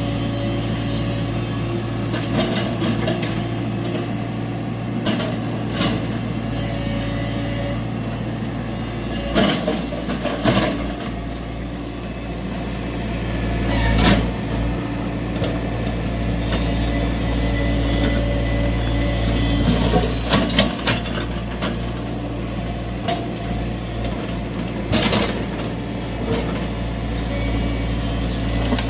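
Tata Hitachi EX70 excavator's diesel engine running steadily under load, with several sharp clanks and knocks as it works loading a truck.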